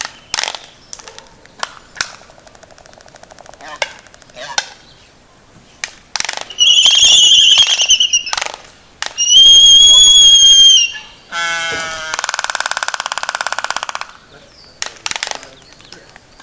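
Laysan albatross calling: a scatter of sharp clacks, then two loud, high, wavering squealing calls a couple of seconds apart, followed by a rapid buzzing rattle lasting about two seconds.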